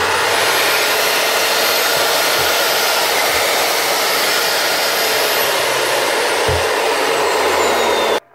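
Makita 9069 9-inch angle grinder's motor running flat out with a high whine that climbs quickly as it spins up, then holds steady. The smashed bevel gear in the head means the motor spins freely without driving the disc. The sound stops abruptly near the end.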